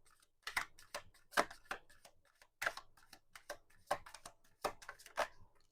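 Tarot cards being handled and laid out, a faint, irregular run of light card clicks and snaps.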